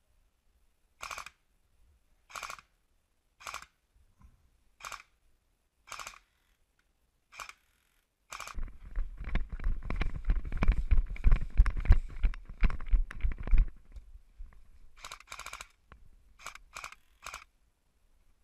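Airsoft guns firing single shots, each a short mechanical clack, about one a second. In the middle comes about five seconds of loud rumbling and quick thuds from running with the body-worn camera. Near the end there is a quick burst and then three more single shots.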